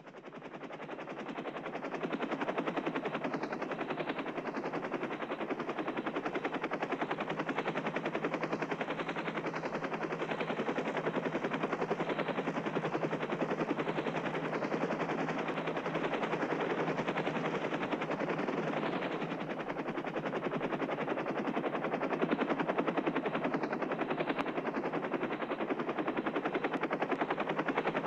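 Helicopter rotor sound, a rapid steady beating of the blades. It fades in over the first two seconds, then holds steady.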